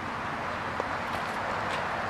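Steady outdoor background noise with no clear pitch, with one faint click a little under a second in.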